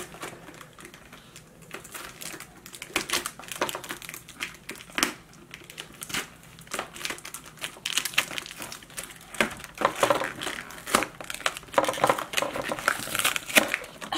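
Cardboard and paper packaging being pulled open and handled by hand: irregular crinkling, rustling and scraping, busier in the second half.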